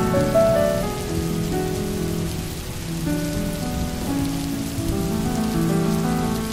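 Steady rain hiss with a soft, slow melody of held notes playing over it: a relaxing rain-and-music background track.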